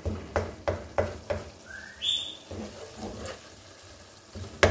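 Wooden spoon stirring minced meat and masala frying in a steel pot, with several short knocks and scrapes of the spoon against the pot and a faint sizzle. A short whistled call, a rising note jumping to a higher held one, sounds about two seconds in.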